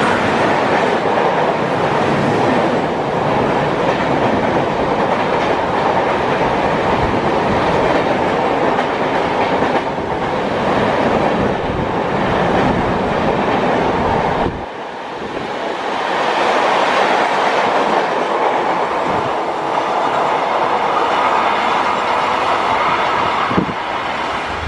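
Passenger train coaches rolling past at speed, the wheels clattering rhythmically over the rail joints. The low rumble drops off suddenly about fifteen seconds in, then the rolling noise carries on.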